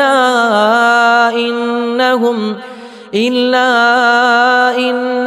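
A male reciter chanting Quranic verse in melodic tajweed style, drawing out long sustained notes with gliding pitch. There is a short breath about three seconds in.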